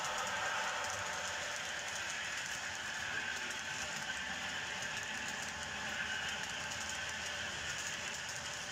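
Model trains running on a layout's track: a steady rolling whir of wheels and motors as a passenger train passes close by.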